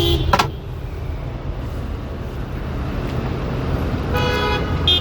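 Steady street traffic rumble, with two brief pitched sounds, one right at the start and one about four seconds in.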